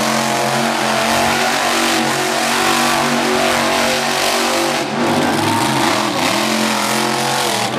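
Engines of winged dirt-track sprint cars running on the track: a steady engine drone whose pitch dips and then rises again about five seconds in.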